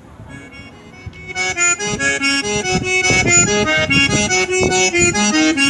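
Accordion-led music with a steady beat, played through a car sound system; it starts soft and comes up to full level about a second and a half in.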